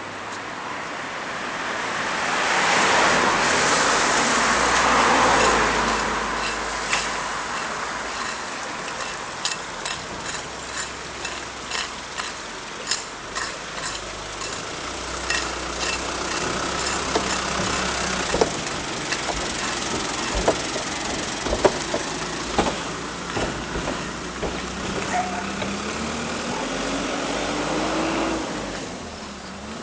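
Road traffic at a railway level crossing. A vehicle passes loudly in the first few seconds, then comes a long run of sharp knocks, and near the end an engine rises in pitch as a vehicle pulls away.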